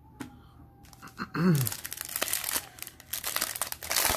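Foil wrapper of a Bowman Chrome trading card pack crinkling and tearing as it is ripped open by hand, starting about a second and a half in. A brief low voice sound comes just as the crinkling starts.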